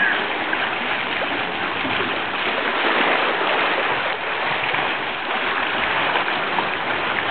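Small sea waves lapping at a stony shore: a steady wash of moving water.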